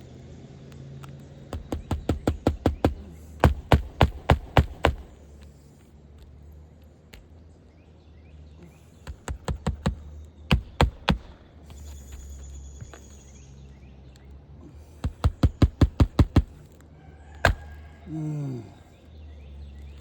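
A hammer driving roofing nails into an asphalt shingle: three runs of quick strikes, each run starting light and growing harder, with one lone strike near the end.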